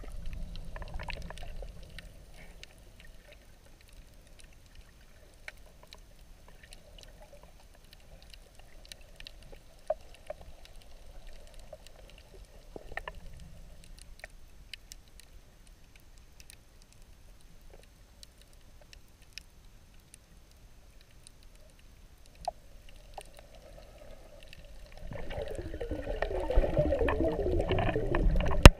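Water heard underwater: a faint, steady muffled wash with scattered small clicks. About 25 seconds in, loud bubbling and churning water takes over for a few seconds.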